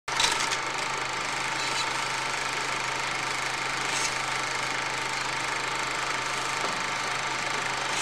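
Film projector running sound effect: a steady mechanical whirr and clatter over a constant low hum, with a brief louder rattle at the start.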